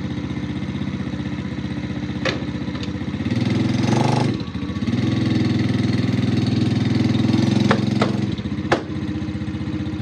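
Small single-cylinder engine of a Chinese X-Pro 125 ATV running under a heavy load of about 1,000 pounds, getting louder twice as the throttle opens and settling back near the end. A few sharp clicks come through, about two seconds in and twice near the end.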